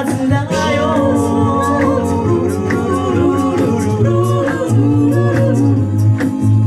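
A mixed male and female a cappella group singing live in close harmony over a low sung bass line, with short sharp vocal-percussion hits.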